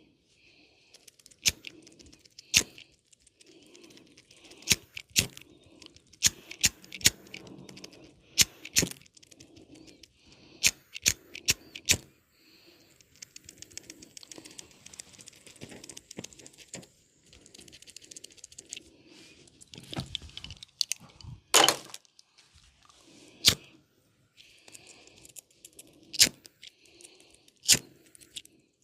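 Close-miked hands massaging an oiled head and ears: soft rubbing broken by many sharp clicks and snaps at irregular intervals, with one louder crackle about three-quarters of the way through.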